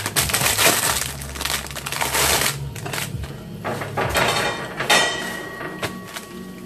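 Rustling, scraping and clattering from handling tortillas on a metal comal and a cloth-lined basket: a dense rustle at first, then scattered knocks, with a sharp clatter about five seconds in.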